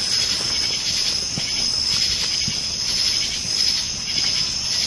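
Crickets singing in a steady, high-pitched chorus.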